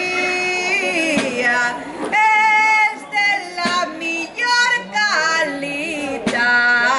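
A woman singing an albà, the traditional Valencian sung verse, in long held, wavering notes broken into short phrases.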